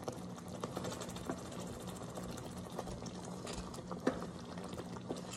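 Wooden spatula working under seared ground-beef patties in mushroom gravy in a slow cooker's pot, with a few soft, scattered taps over a steady low hum.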